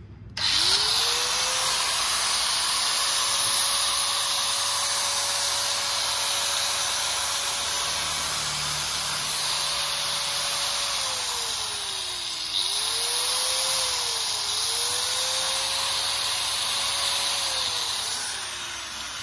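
Hitachi 100 V, 720 W angle grinder running free with no load: its whine rises as it starts, holds steady, then drops as it is switched off and spins down about 11 s in. It is started again, briefly let off and picked up again, runs steady and spins down once more near the end.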